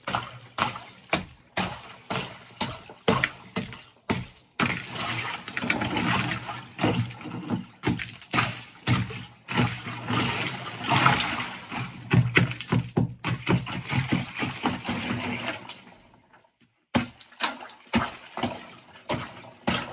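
A hammer chopping and breaking the ice floating in a chest-freezer ice bath: repeated knocks about two a second, then several seconds of ice chunks and water sloshing and splashing as it is churned, a brief pause, and a few more knocks near the end.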